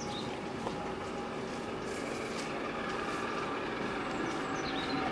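Steam locomotive 60163 Tornado, an A1 Pacific, approaching with its train: a steady rumble with a few steady hums that slowly grows louder. A couple of short high chirps come near the start and near the end.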